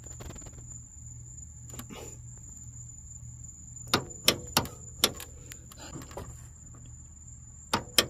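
Sharp metal clicks and clacks of a Chevy S10's hood latch mechanism being squeezed and pushed by hand, a handful about halfway through and more near the end, over a steady low hum. The latch is stuck and will not slide far enough to the left to release the hood.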